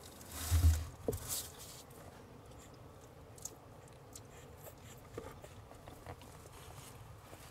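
Newborn beagle puppies suckling at their mother, with faint small wet smacking and clicking sounds. A low thump with a rustle comes about half a second in.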